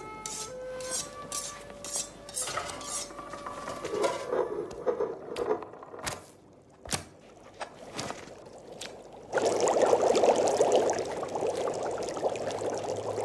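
Cartoon soundtrack: a few short melodic notes, then a run of sharp clinks and knocks like kitchen utensils. About nine seconds in, a loud, dense rushing noise starts and keeps going.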